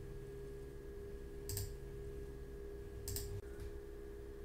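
Two faint clicks at a computer, about a second and a half apart, over a steady low hum.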